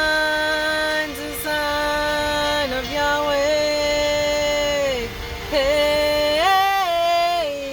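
A woman singing long wordless held notes, sliding up and down between pitches, over a steady sustained tone beneath.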